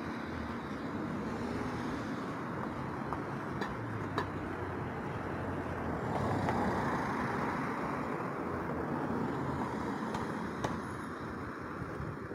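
Road traffic on a city street: cars driving past with steady tyre and engine noise, swelling about halfway through as a car goes by.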